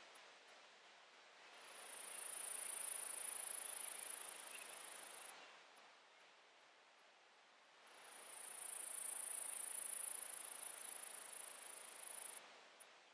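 An insect calling in two long, very high-pitched buzzing trills of about four seconds each, each led in by a few short ticks, over a faint steady outdoor hiss.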